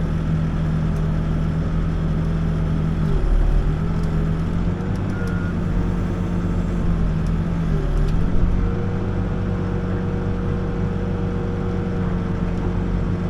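Backhoe's diesel engine running steadily while digging, heard from the operator's seat, with two brief dips in pitch about three and eight seconds in. It runs smooth with very little lug.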